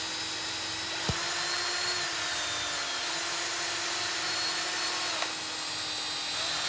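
Cordless drill running steadily with an 1/8 inch bit boring into a golf ball. The motor's whine sags in pitch about two to three seconds in as the bit takes load, with two brief clicks along the way.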